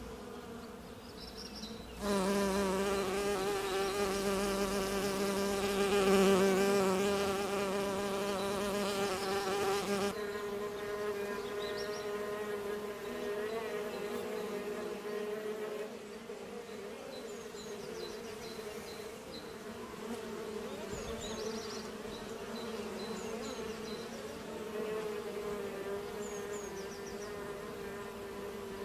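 Bees buzzing: a steady, slightly wavering drone. It gets abruptly louder about two seconds in and drops back abruptly about ten seconds in.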